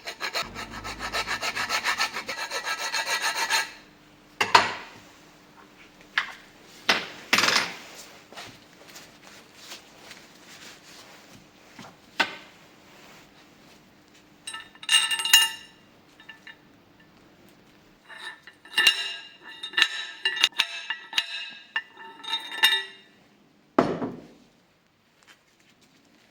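Hand file rasping on the bicycle fork in quick back-and-forth strokes for about four seconds. A few separate knocks follow, then two more short bursts of filing, and a single thump near the end.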